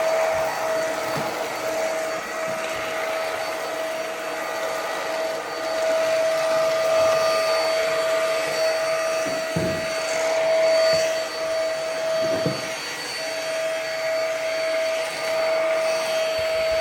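Ozito PXC 18V cordless stick vacuum running: a steady high whine over rushing air, with the whine briefly dropping out a few times. Two soft low knocks come about ten and twelve seconds in.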